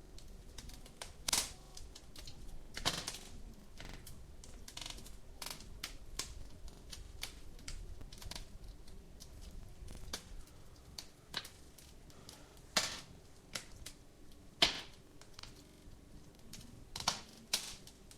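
Wood fire crackling, with irregular sharp pops of varying loudness over a soft low rumble.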